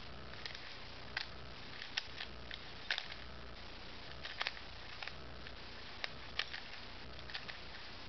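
Plastic clicks and clacks of a 3x3 Rubik's Cube as its layers are turned quickly by hand in a speed solve. The clicks come irregularly, about a dozen of them, over a steady low hum.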